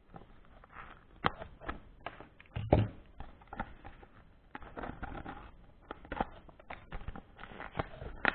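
Plastic packaging pouch crinkling and crackling as it is handled and flexed in the hands: irregular sharp crackles with rustling between them, the loudest a bit over two and a half seconds in.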